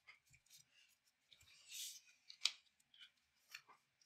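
Trading cards being handled on a table: faint scattered clicks and taps, a short swish about two seconds in, and the sharpest click about two and a half seconds in.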